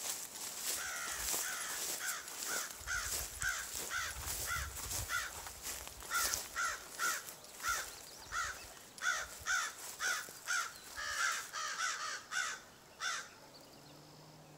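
A crow cawing over and over, about two caws a second, stopping about a second and a half before the end. Underneath are the swish and crunch of footsteps through tall grass.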